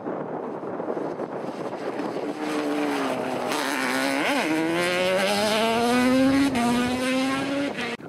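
Racing quad bike's engine accelerating hard up the hill, its note rising steadily after a brief wobble about four seconds in, then cutting off abruptly near the end.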